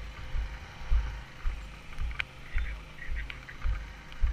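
Walking footsteps: dull, even thuds about two a second.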